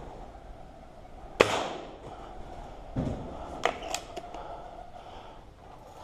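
A single air rifle shot with a short reverberant tail in the shed, about a second and a half in. A dull thump follows about a second and a half later, then a few sharp clicks.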